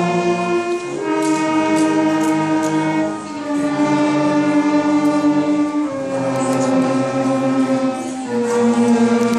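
Fifth-grade beginner concert band playing a slow passage of long held chords, moving to a new chord about every two to three seconds.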